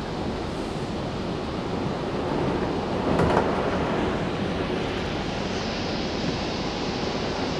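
Stockholm metro C20 train running through a tunnel, heard from inside the car: a steady rumble and rush of wheels on rail, swelling briefly about three seconds in.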